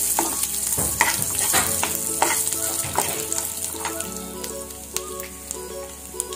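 Peanuts, roasted chana dal, dried red chillies and curry leaves sizzling in hot oil in a frying pan: the tempering stage of the dish. A steel spoon scrapes and clicks against the pan about once a second as it stirs. The sizzle slowly grows quieter.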